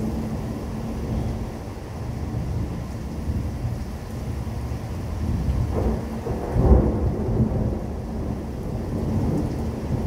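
Thunder rumbling continuously in a severe thunderstorm, with rain falling; a louder, sharper peal comes about two-thirds of the way through.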